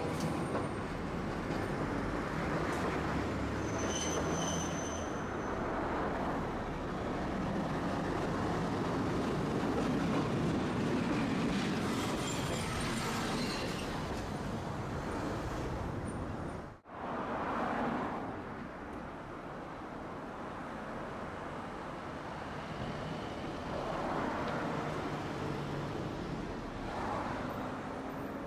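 Tosaden streetcar running along street-level tracks among passing road traffic, with a brief high wheel squeal a few seconds in. About two-thirds of the way through the sound breaks off for an instant, and quieter traffic noise follows.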